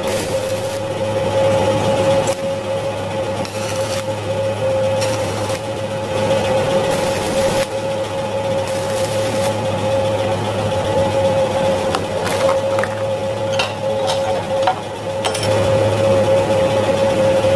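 Stick-welding arc from a 1.6 mm stainless electrode on a small inverter welder at about 22 amps: a steady crackling hiss over a steady whine. A few sharp clicks and knocks come near the end as the weld is finished.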